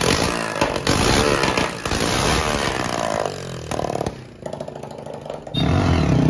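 Hero Splendor motorcycle's single-cylinder engine running and revving. It comes in short cut-together clips, so the sound changes abruptly several times and dips quieter for a moment past the middle before getting loud again near the end.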